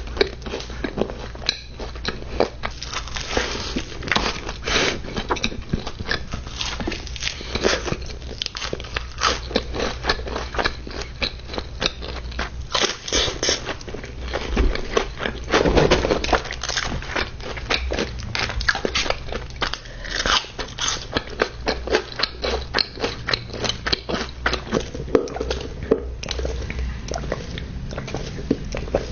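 Close-miked crunchy bites and chewing of Raising Cane's fried chicken tenders tucked into buttered Texas toast. The sharp crunches come irregularly throughout, over a steady low hum.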